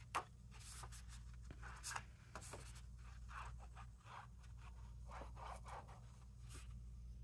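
Applicator tip of a liquid glue bottle scratching and dabbing across cardstock, with paper handled and shifted in between: faint, short, irregular scraping strokes.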